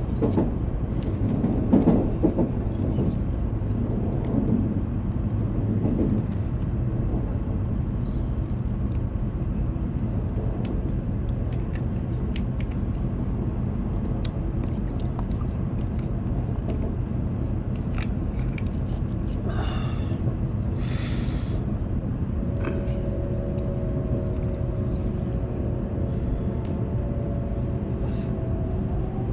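Shinkansen running noise heard inside the passenger cabin: a steady low rumble from the moving train. A brief hiss comes about twenty seconds in, and a steady whine of several tones joins about three-quarters through.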